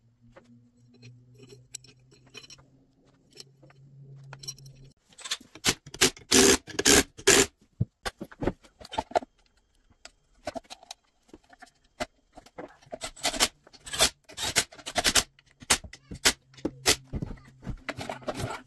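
Metal tools and engine parts clattering and scraping, in two busy spells of sharp knocks, over a faint low steady hum.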